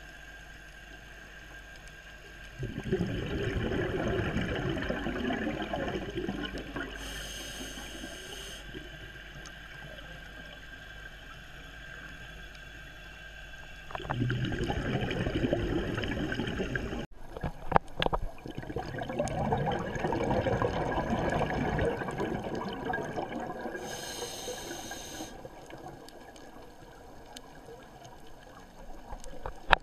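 Scuba diver breathing through a regulator underwater: long bubbling, gurgling exhalations lasting a few seconds each, with short hisses of the inhale between them. A cluster of sharp clicks comes a little past halfway.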